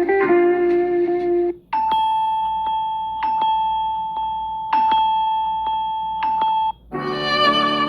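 Samsung Galaxy S23 Ultra ringtones playing one after another. A melodic guitar ringtone ends, and after a short break a chime-like ringtone holds one high tone over light taps that come about every one and a half seconds. About seven seconds in, another ringtone with strings begins.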